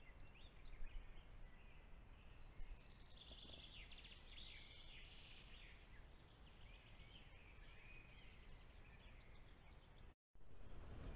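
Faint woodland birdsong: scattered chirps and trills from several small songbirds, over the steady low hiss and rumble of a trail camera's microphone. The sound drops out briefly near the end.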